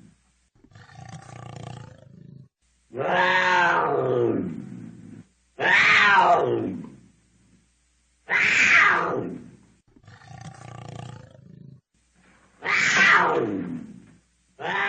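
Cougar calling: five loud screams, each falling in pitch over about two seconds, with quieter, lower calls between them.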